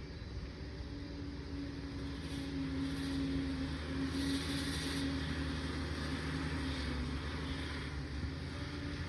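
Liebherr PR 746 crawler dozer's diesel engine running steadily, a little louder from about three to five seconds in, with a brief hiss about four seconds in.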